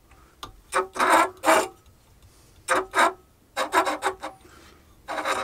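Metal tip of a tramming arm clamped in a CNC spindle scraping over an MDF spoilboard as the spindle is turned by hand: a series of short scrapes with gaps between them. It touches only through part of each turn, at the front but not at the back, a sign the spindle is not yet square to the bed.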